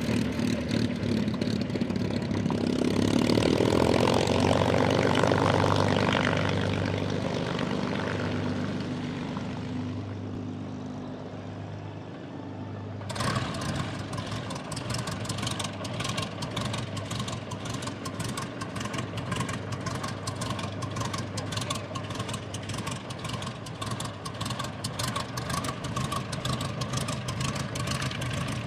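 A P-51 Mustang's Merlin V-12 runs as the fighter taxis past, swelling and then fading away. About 13 seconds in, it gives way to a Spitfire's Rolls-Royce Merlin V-12 idling just after start-up, with a fast, even popping beat from the exhaust stacks.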